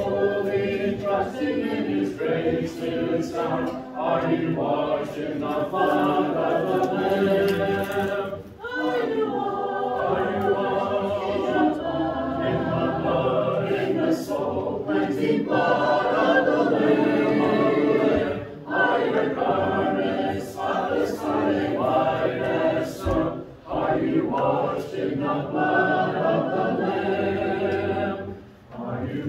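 Congregation singing a hymn a cappella, unaccompanied voices in harmony, with short breaks between the sung lines.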